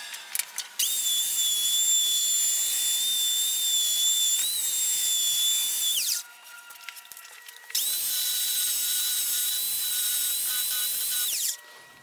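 Handheld belt sander sanding the end grain of a mahogany countertop: two runs of about five and four seconds with a steady high whine, each winding down as the sander is switched off.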